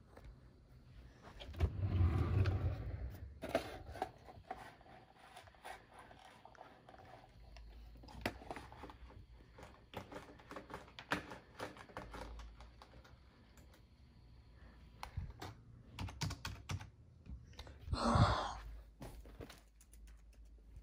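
Irregular light clicks and taps throughout, with a low thump about two seconds in and a louder rustling burst near the end.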